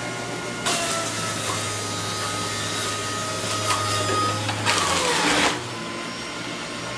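Breville cold press juicer running on its low setting, its motor humming steadily while produce is pushed down the feed chute. Louder grinding from just under a second in, and a louder burst of it about five seconds in, after which the low hum drops away.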